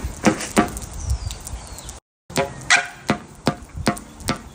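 A quick, irregular series of sharp clicks and knocks, a few a second, broken by a moment of dead silence about two seconds in.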